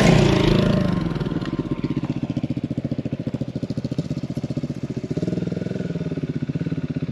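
Single-cylinder dual-sport motorcycle engine idling with an even, rapid pulse, after background music fades out in the first second.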